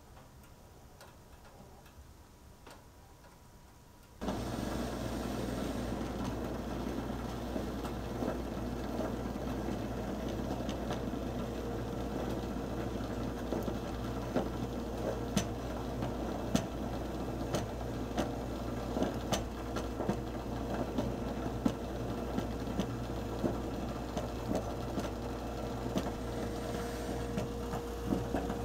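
Vintage stovetop percolator on an electric coil burner, quiet with faint ticks at first, then about four seconds in it suddenly starts perking: a steady bubbling full of sharp pops and knocks as the water comes to the boil and is forced up the tube into the glass knob.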